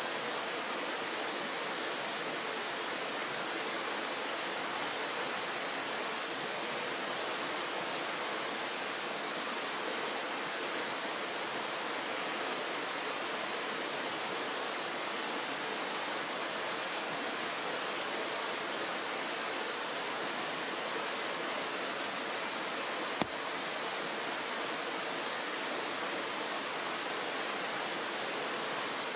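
Shallow mountain stream rushing steadily over a stony bed. Three brief high chirps come several seconds apart, and a single sharp click, the loudest moment, comes about two-thirds of the way through.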